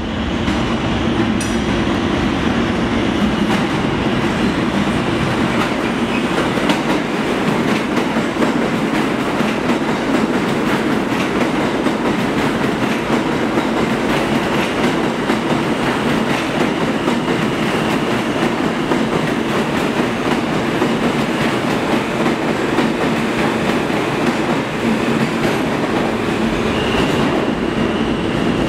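New York City subway train running through an underground station: a steady loud rumble and clatter of steel wheels on the rails, with a faint high wheel squeal at times.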